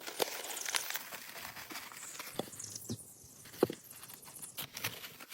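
Quiet outdoor ambience with scattered soft clicks and taps, and a short squeak about three and a half seconds in, the loudest sound.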